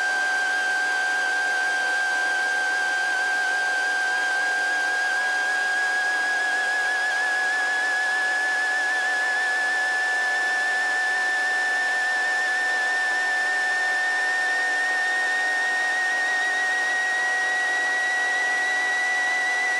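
A steady high electronic whine in the helicopter's headset intercom audio, its pitch rising slowly and evenly throughout, with fainter fixed tones beneath it.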